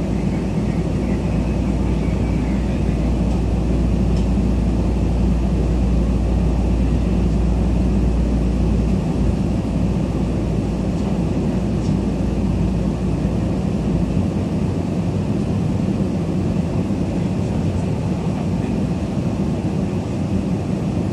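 Steady cabin noise inside a Tokyu 8500 series electric train in a subway tunnel: a deep rumble that eases about nine seconds in and drops again around fourteen seconds.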